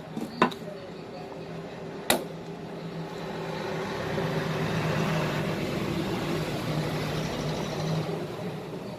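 Two sharp knocks, then a steady machine hum that grows louder from about three seconds in and eases off near the end.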